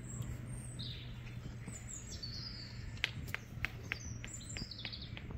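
Small songbirds singing and calling in woodland: high, thin, slurred song phrases, and from about halfway through a quick run of sharp call notes, over a low steady background hum.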